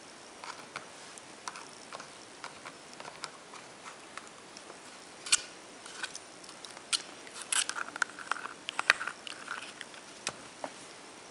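Basset hound puppy gnawing a rolled rawhide chew: irregular clicks and crunches of teeth on the hide, coming thickest a little past the middle.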